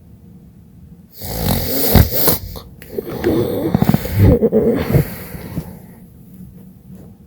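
A woman snoring in her sleep: after about a second of quiet comes one long, fluttering, rattling snore lasting several seconds, which then fades.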